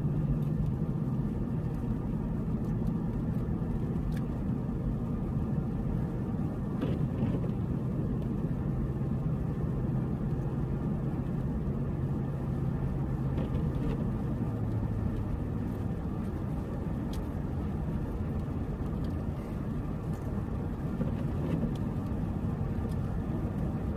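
Steady rumble of a car's engine and tyres heard inside the moving car's cabin, with a low engine hum that fades about two-thirds of the way through.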